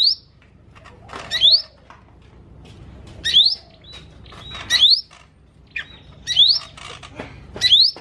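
Cucak ijo mini leafbird singing: a loud, sharply rising whistled note repeated about every second and a half, with short chattering notes and brief held whistles between them.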